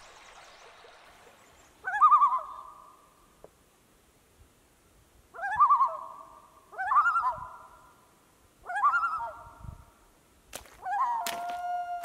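Common loon giving its tremolo call: five loud bouts of rapidly wavering, laughing notes, each about a second long. The last one runs into a longer, steadier note near the end.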